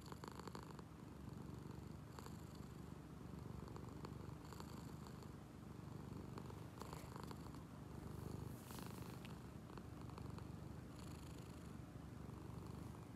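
Domestic cat's steady, rumbling 'motorboat' purr, which the owner half wonders may be snoring while awake. A thin high whistle comes and goes every two seconds or so.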